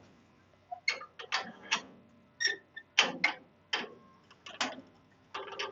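Metal farm gate being pulled shut and latched: a run of irregular clanks and clicks, some with a short metallic ring.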